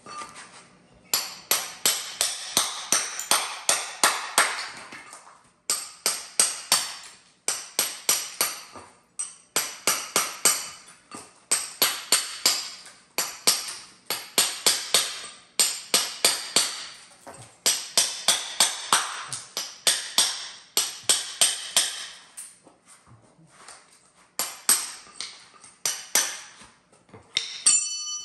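Hammer blows in quick runs of several strikes, about three a second, with short pauses between runs. Near the end one strike rings with a metallic ping.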